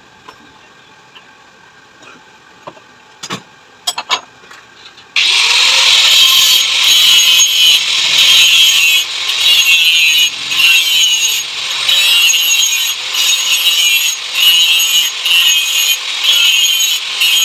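A few sharp knocks, then a loud, harsh scraping of a tool working a metal shock-absorber part, starting suddenly about five seconds in and going on in steady strokes about once a second.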